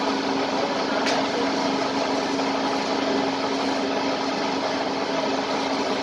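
Small flat-die pellet machine with a 5.5 HP motor running steadily while it takes feed material through its hopper. It makes an even hum with one steady tone.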